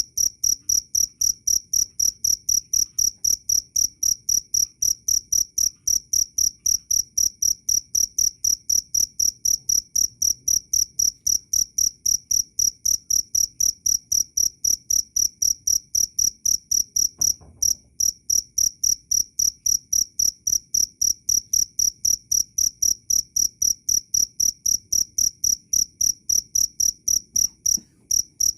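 A cricket calling loudly in a fast, even chirp of about three pulses a second, high-pitched. It pauses briefly about two-thirds of the way through, with a faint low knock just before, and again near the end.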